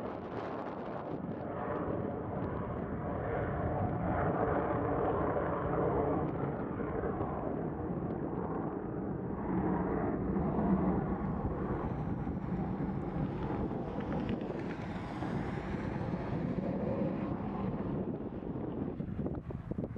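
Dassault Falcon 20 business jet's twin rear-mounted turbofan engines at takeoff power through the takeoff roll and liftoff. The noise swells toward the middle, and a faint high whine comes in past the middle. Gusty wind buffets the microphone.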